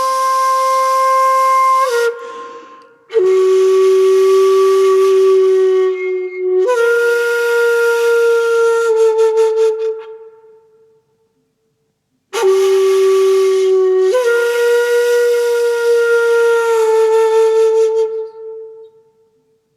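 A solo flute-like wind instrument playing a slow melody of long, breathy held notes, each phrase sinking a step in pitch near its end, with short silences between phrases.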